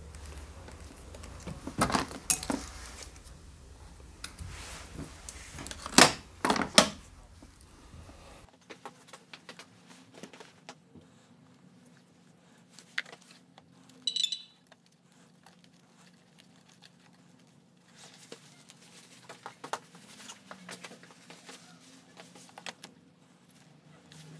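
Hands handling a heated-grip wiring harness and its plastic connectors: rustling and small rattles with several sharp clicks and metallic clinks, loudest in the first third, then quieter scattered ticks.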